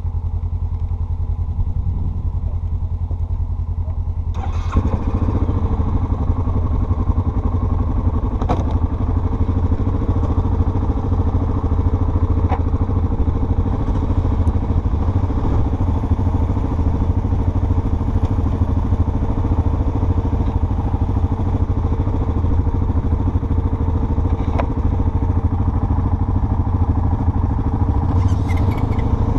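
Off-road vehicle engine running steadily under way, a low drone that grows louder and fuller about four seconds in, with a few sharp knocks from the ride.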